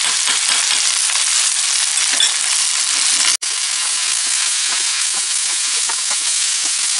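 Flat rice noodles and vegetables sizzling in a hot wok while a spatula stirs and tosses them, with light scraping against the pan. The sound cuts out for an instant about three and a half seconds in.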